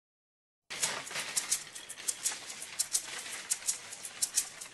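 Metal shopping trolley rattling as it is wheeled over pavement: quick, irregular clicks, about four a second, starting just under a second in.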